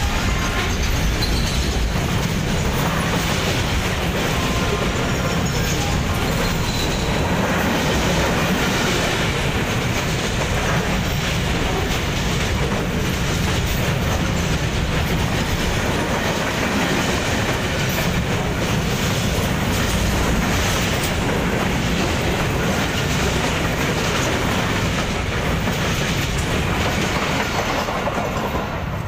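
Container freight train's loaded flat wagons rolling past close by: a steady rumble with the clatter of wheels over the rail joints.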